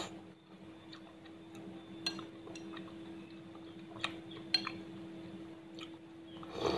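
Metal spoon clinking and scraping against a ceramic bowl in a few sharp, separate ticks while pumpkin kolak is scooped and eaten, over a steady low hum. A louder eating sound comes near the end as a spoonful goes into the mouth.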